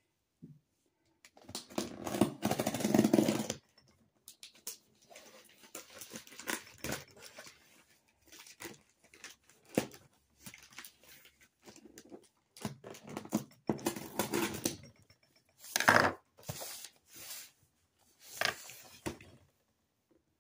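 Black plastic trash bag wrapping a taped box crinkling and rustling as the package is handled and turned, in irregular bursts with brief quiet gaps; the loudest handling comes about two seconds in and again near the end.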